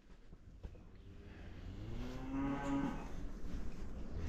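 A single long moo from cattle, swelling to its loudest about two seconds in and fading away before the end.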